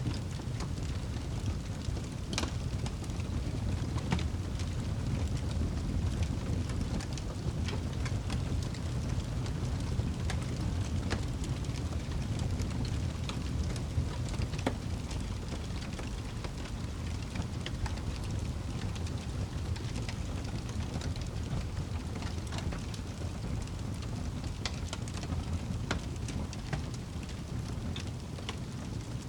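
Wood fire burning in a fireplace: a steady low rush of the flames with scattered sharp crackles and pops throughout.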